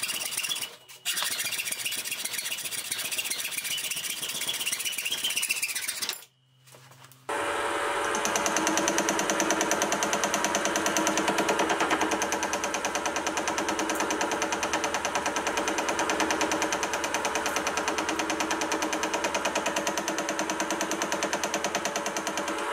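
A saw blade cutting through T-profile mild steel bar, a steady rasping, which stops about six seconds in. Then the mini vertical mill runs steadily, its cutter machining a small steel T-nut in the vise, a steady mechanical whirr with a fast even chatter.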